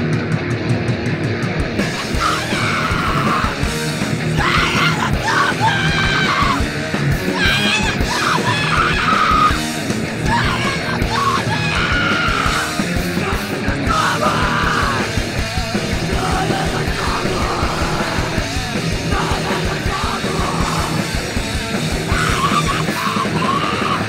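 Live punk rock band playing loud, with screamed vocals over the music.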